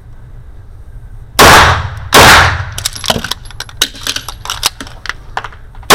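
Two 9mm shots from a Bul 1911 single-stack pistol, about three-quarters of a second apart, each loud and ringing out briefly, followed by a string of light sharp clicks and clatters of the magazine reload, and another shot right at the end.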